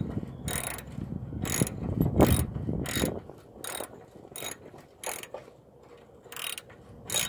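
Hand ratchet clicking on each back-swing as it spins out an upper control arm bolt that has already been broken loose, about one swing a second, with a longer pause near the end.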